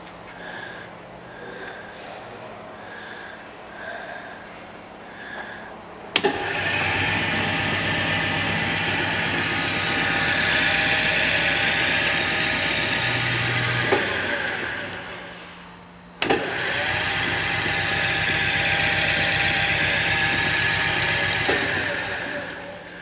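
Hardinge DV-59 lathe's variable-speed spindle switched on with a click about six seconds in, running with a steady whine and growing louder after a few seconds, then coasting down to a stop. It is started again with another click a couple of seconds later, runs steadily, and winds down again just before the end.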